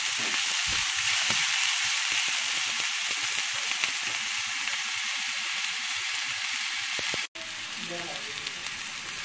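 Chopped onion and garlic sizzling in hot oil in a frying pan, with a wooden spatula stirring and scraping through them. The sound cuts out for an instant about seven seconds in, then the sizzle goes on a little quieter.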